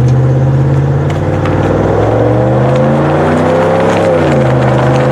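Ram 1500 pickup driving at highway speed, with steady engine drone under road and wind noise. The engine note climbs gently, then dips briefly about four seconds in.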